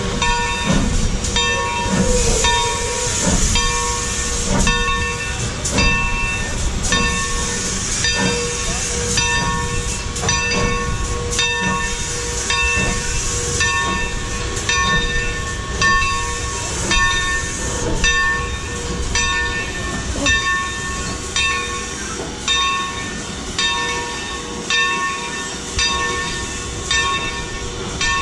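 Locomotive bell ringing steadily, a little more than once a second, as a diesel-and-steam consist moves at low speed. A low engine rumble and swells of steam hiss run underneath.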